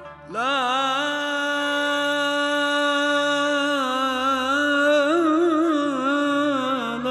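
A man's solo singing voice holds one long sung vowel of an Arabic munajat (a sung supplication), ornamenting it with quick wavering turns. It comes in suddenly about a third of a second in and sinks a little in pitch near the end.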